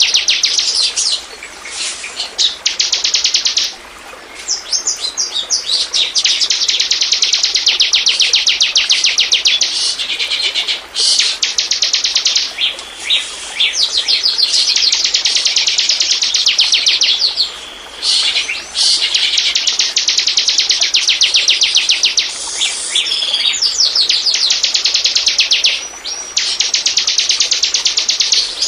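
Bar-winged prinia (ciblek) singing: long, rapid, high trills of quickly repeated notes, each phrase lasting a few seconds, with short breaks between phrases. This is the kind of ciblek song used as lure audio.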